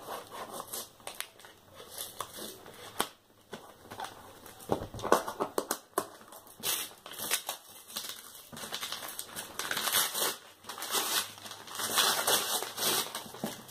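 Brown kraft-paper parcel wrapping being picked at and torn open by hand, crinkling and crackling in irregular rustles that grow louder and more continuous in the second half as the paper is ripped away.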